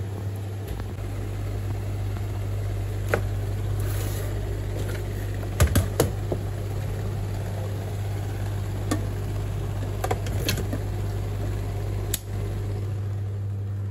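A steady low machine hum, like a kitchen fan or appliance running, with a few sharp clicks and knocks scattered through it, the loudest a pair about six seconds in.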